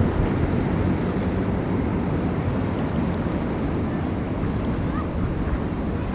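Wind buffeting the microphone: a steady low rumbling rush.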